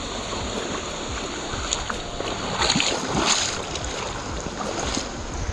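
Wind rumbling on a body-worn action camera's microphone, with a cluster of brief rustling noises about three seconds in.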